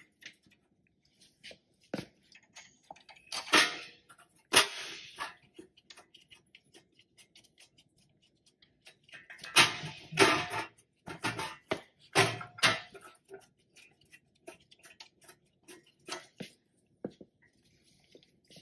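Hand ratchet on a long extension clicking in several short runs as the front hub bearing's mounting bolts are run in, with scattered light metal clinks and ticks in between.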